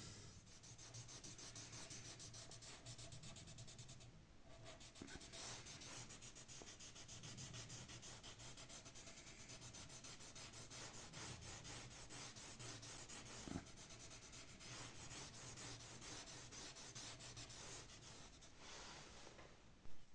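Graphite pencil scratching on paper in rapid back-and-forth shading strokes, faint and continuous, with a short pause about four seconds in and a sharp tap near the end.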